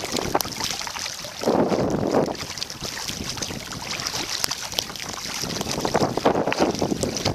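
Kayak paddle strokes splashing in open water, two stronger strokes a few seconds apart, with wind buffeting the microphone throughout.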